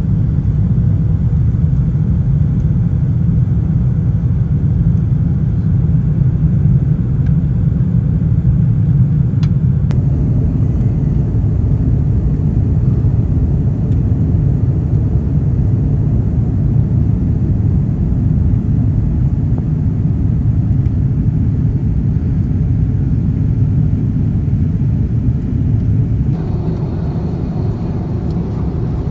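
Steady low rumble of engine and airflow noise inside the cabin of an Airbus A350-900 airliner, with small shifts in tone about a third of the way in and near the end.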